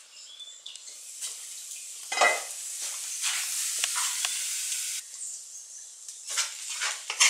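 Caruru (amaranth greens) and egg omelette sizzling steadily in a frying pan on a wood-fired stove, with a clank about two seconds in. Near the end, a spoon scrapes the pan a few times as the omelette is scooped out.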